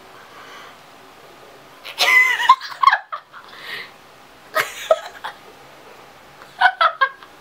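A woman laughing and giggling in three short bursts: one about two seconds in, one near the middle and quick giggles near the end.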